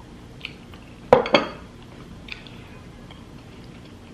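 Hard items clattering against a dish during eating: two loud knocks in quick succession about a second in, with a few lighter clinks before and after.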